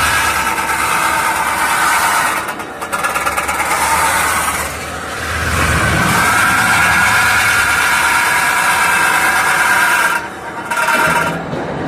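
CNC pot spinning machine running, its forming roller working a spinning metal pot blank: a loud, steady machine whine that dips briefly a few times.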